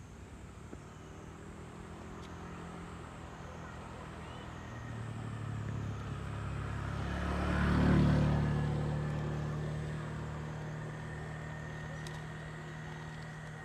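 A motor vehicle passing close by: its engine grows louder to a peak about eight seconds in, then fades away slowly.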